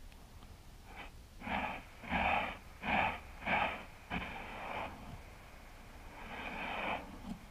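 A hand scraping and scooping loose beach sand close to the microphone: a run of four short scratchy strokes, then softer scraping a few seconds later.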